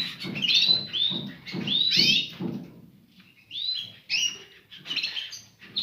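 Small caged finches chirping: short arching high notes repeated about twice a second, with a brief lull about three seconds in before the calls resume.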